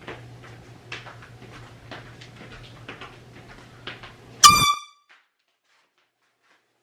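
Handheld canned air horn gives one brief, loud, piercing blast about four and a half seconds in. Before it there are only faint clicks over a low hum.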